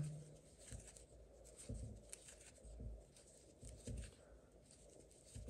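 Faint handling noise from hands crocheting yarn with a hook: quiet rustling and scratching with soft bumps about once a second.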